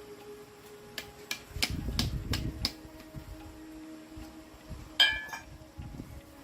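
Metal tools clinking and knocking against metal parts: a quick run of about six knocks, then one sharp metallic strike about five seconds in that rings briefly.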